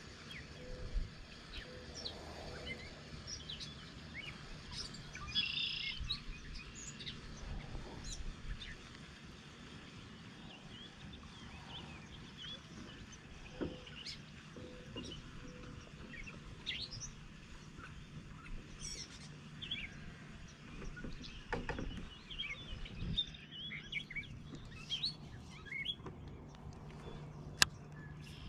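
Songbirds chirping and calling on and off, with a few faint knocks. A single sharp click comes near the end as a baitcasting rod is cast.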